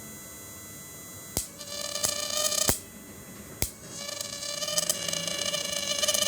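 A 12-volt to 1200-volt electric fishing machine's inverter buzzing with a high-pitched whine, cutting in and out with sharp clicks: it comes on about a second and a half in, stops just before three seconds, and starts again at about four seconds.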